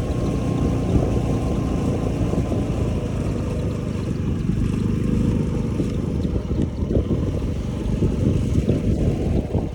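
Wind buffeting the microphone of a moving Honda Zoomer 110 scooter, a steady, dense rumble, with the scooter's single-cylinder engine running underneath.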